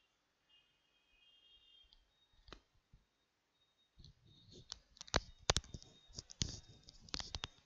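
Sharp irregular clicks and taps, one or two isolated ones at first, then many in quick succession from about four seconds in.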